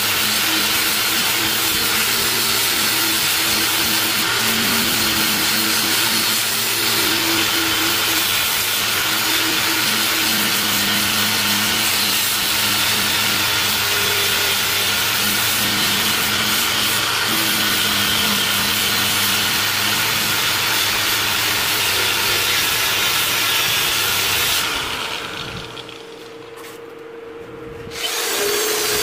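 Electric angle grinder with a sanding pad running against metal: a loud, steady grinding hiss over a constant motor whine, which winds down about 25 seconds in. Near the end an electric drill fitted with a brass wire brush starts up loudly.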